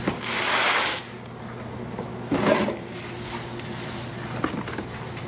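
Cardboard storage boxes being moved and handled: a scraping rush a little under a second long near the start, then a shorter scuff about two and a half seconds in and a few light knocks.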